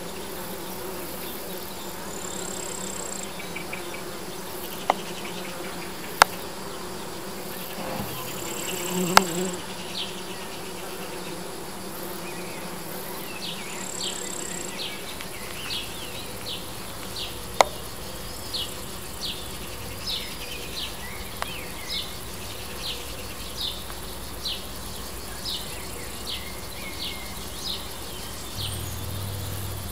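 Bees buzzing around flowering lavender, a steady hum. A few sharp clicks break in, and from about halfway a short high chirp repeats a little more than once a second.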